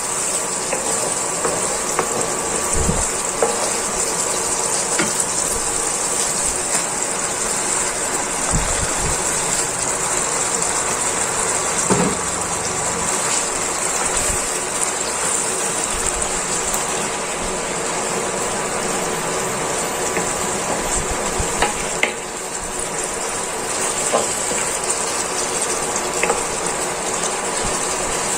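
Sardines in sauce simmering and sizzling in a nonstick frying pan, a steady hiss, with scattered taps and scrapes of a wooden spatula stirring in the pan.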